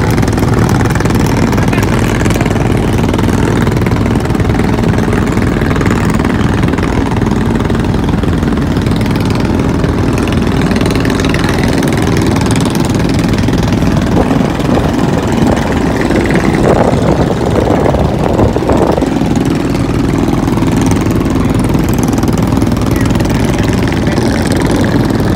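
Motorboat engine running steadily, heard from on board the boat.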